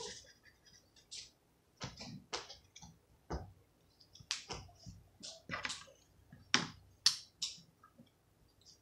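Irregular short clicks and scratches of felt-tip markers: the tip stroking and tapping on paper, and plastic caps being pulled off and pushed back on.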